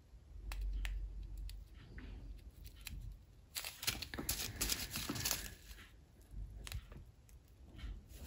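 Small zip-lock plastic bags of square resin diamond-painting drills being handled: the thin plastic crinkles and the tiny drills rustle and click inside, in short bursts. A low rumble sounds in the first few seconds.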